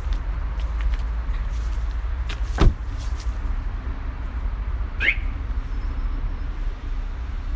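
Steady low rumble of outdoor street noise on a phone microphone, with one sharp knock about two and a half seconds in and a short high squeak about five seconds in.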